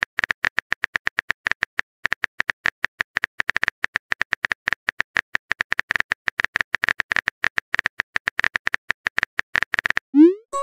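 A rapid run of short, sharp clicks, about eight a second, all at the same bright pitch, with a brief gap about two seconds in. Just before the end comes a short sound rising quickly in pitch.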